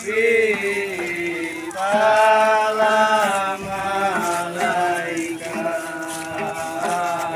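A group of men's voices chanting together in unison, holding long notes that bend and waver, with several voices overlapping.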